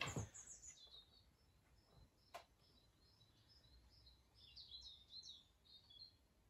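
Faint high chirping of small birds on the soundtrack of wildlife footage playing through a television's speakers, coming thickest a little past the middle, with one sharp click about two seconds in.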